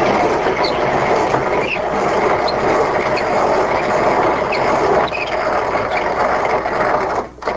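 Hand-cranked steel grain grinder milling dried corn at a fine setting: a steady, dense grating and crunching as the kernels are cranked through the burrs. It breaks off briefly near the end.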